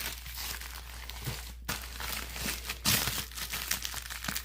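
Packaging wrapped around a boxed replica belt crinkling and rustling as it is handled, with irregular crackles that grow louder about three seconds in.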